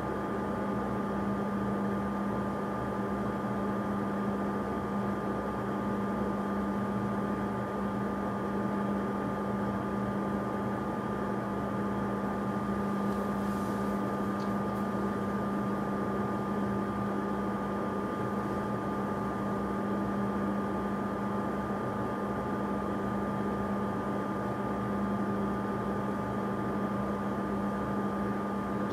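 A steady machine-like hum over constant hiss, with a few fixed tones and no change in level. Two faint brief high sounds come about halfway through.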